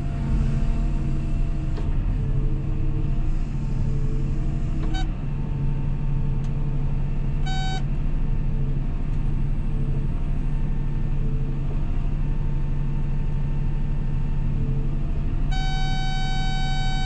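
Cat 323F excavator's diesel engine running steadily, heard from inside the cab. Two short beeps come around the middle and a longer held beep near the end, from the grade-control unit.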